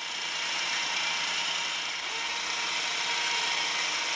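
Battery-powered electric winch running steadily, its motor and gears turning the drum as it winds steel wire cable in.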